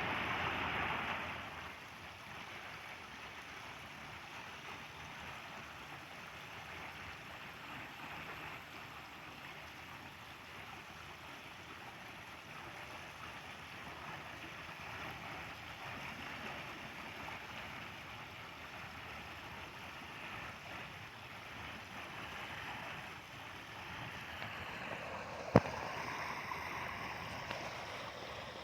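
Steady rushing outdoor noise, louder for the first second or so, with one sharp click about twenty-five seconds in.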